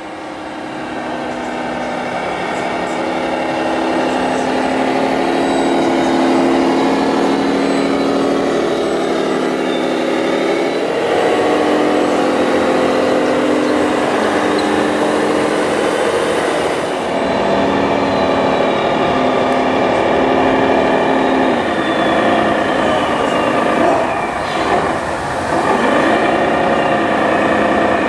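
A radio-controlled scale model truck running, with a steady mechanical whine made of several tones that shift in pitch now and then.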